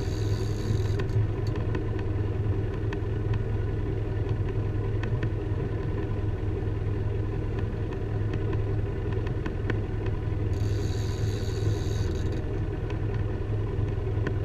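Boat engine running steadily with a low hum throughout. Twice a high whirr from the fishing reel, each about a second and a half long: once ending about a second in, and again about ten and a half seconds in.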